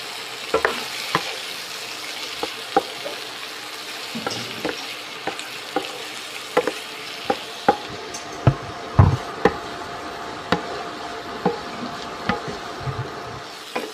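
Peeled shrimp sizzling in butter in a frying pan, with a wooden spatula knocking and scraping against the pan as they are stirred. The knocks are loudest about two thirds of the way through.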